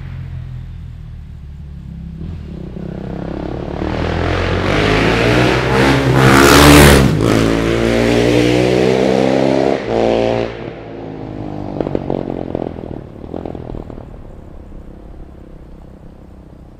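Husqvarna SMR 511 single-cylinder supermoto with an Akrapovic full titanium exhaust passing at speed. The engine note builds as it approaches, is loudest about seven seconds in, and stays loud for a few seconds as it pulls away before fading out.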